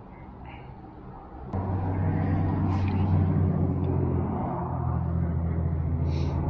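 Motor vehicle engine running steadily, a low hum that starts abruptly about a second and a half in.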